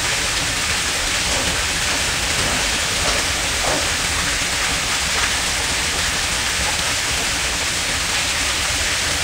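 A steady, even rushing hiss, like rain or running water, with no change in level throughout.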